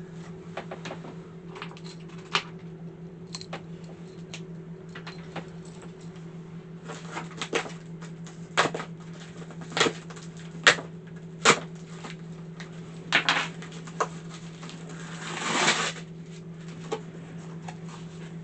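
Box and packaging being opened and handled by hand: scattered sharp clicks and knocks, and a short rustling, scraping noise near the end, over a steady low hum.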